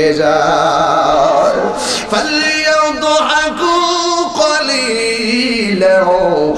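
A man's voice chanting a sermon passage in a sung melody, with wavering, drawn-out notes.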